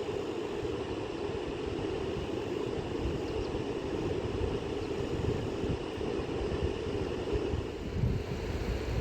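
Steady rush of a fast-flowing river, with wind buffeting the microphone in irregular low thumps.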